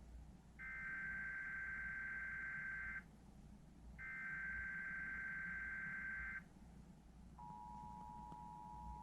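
Emergency Alert System test: three screeching digital SAME header data bursts, each about two and a half seconds long with short gaps between them, encoding a Required Monthly Test. About seven seconds in, the steady two-tone EAS attention signal begins.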